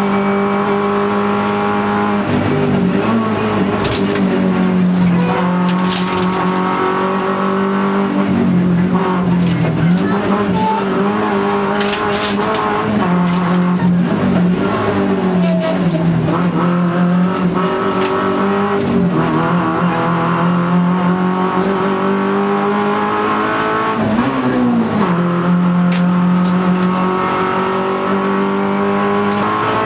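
Rally car's engine heard from inside the cabin, held at high revs on the straights and dropping and climbing again several times as the driver lifts off, brakes and changes gear for the bends.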